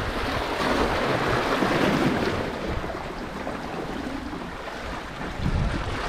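Sea surf washing against the shore, a steady rushing that swells in the first couple of seconds and then eases a little, with wind buffeting the microphone.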